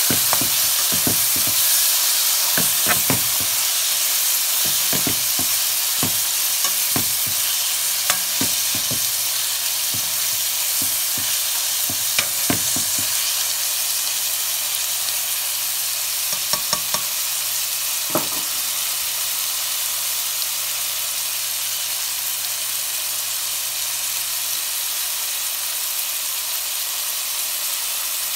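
Chopped onion, bell peppers, corn and peas sizzling in hot oil in a metal pan as a spatula stirs them, scraping and knocking against the pan. The knocks come often in the first half and only now and then later, while the sizzle goes on steadily.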